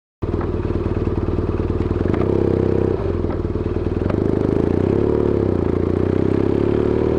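BMW R1200GS boxer-twin engine running under way, with a steady pulsing note that rises gradually in the second half. It cuts in abruptly just after the start.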